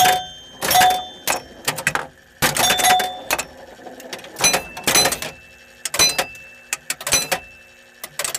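Williams Fun Fest electromechanical pinball machine working: coils and relays click and clatter in irregular bursts, about a dozen, some leaving a brief metallic ring.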